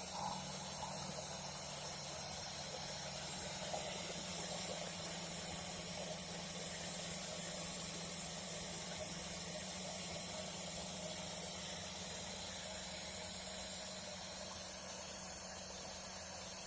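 DIY CNC router running steadily, its spindle motor giving a steady hum with a hiss over it as the bit works through foam. The hum shifts down a step about four seconds in.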